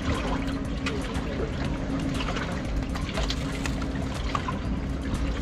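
Water sloshing and lapping against the hull of a small wooden fishing boat, with many small irregular splashes, over a steady low engine hum.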